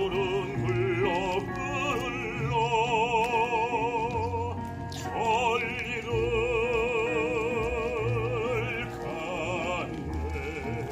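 Baritone singing a Korean art song live with strong vibrato, holding two long notes, over a recorded accompaniment track played through a Bluetooth speaker.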